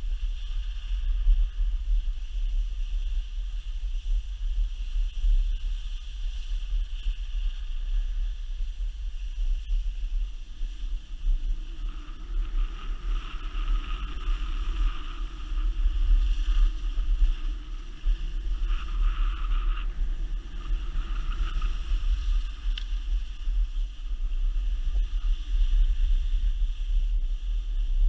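Wind buffeting the microphone of a camera moving fast down a ski slope: a constant low rumble with steady hiss above it. A fainter hum joins in the middle and fades again.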